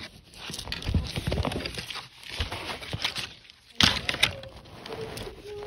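Small plastic toy pieces and packaging being handled: irregular rustling and clicking, with a sharp knock about four seconds in.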